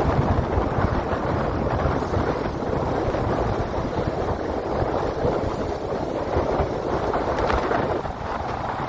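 Strong wind buffeting the microphone in gusts over the rush of breaking lake waves.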